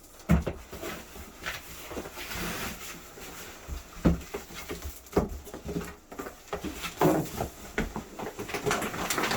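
A heavy Flashforge Adventurer 4 3D printer is being lifted out of its cardboard shipping box: cardboard and packing rustle and scrape, with scattered knocks and several thumps.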